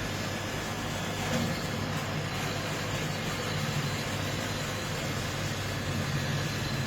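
Automatic beer-keg washing machine running: a steady low machine hum under a continuous hiss.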